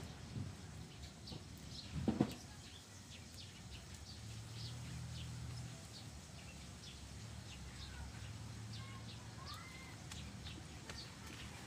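Small birds chirping in short, high calls throughout, with a few short gliding calls near the end. A double knock sounds about two seconds in, and a low steady hum runs through the middle.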